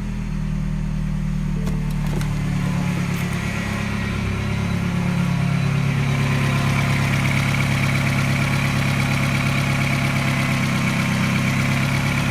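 Mini N12 1.6-litre four-cylinder petrol engine at a steady fast idle just after a start from part-warm, running smoothly. It gets a little louder about halfway through.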